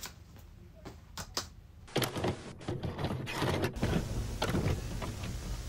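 A VCR taking in and starting a tape: after a few faint clicks, a run of mechanical clicks and clunks about two seconds in, settling into a steady tape hiss over a low hum.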